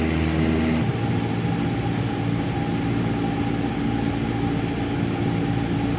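Steady engine drone of the aircraft the aerial footage is filmed from, a hum of several steady tones over a noisy rush; the tone pattern shifts slightly about a second in.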